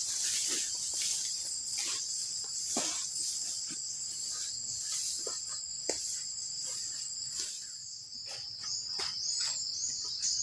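A steady, high-pitched chorus of forest crickets, with scattered short rustles and snaps on top.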